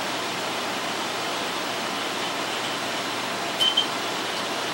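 Two quick high beeps from an APC Smart-UPS 1400 over a steady hiss, about three and a half seconds in. The unit has just been powered up after a battery replacement and is running on a battery that is still low.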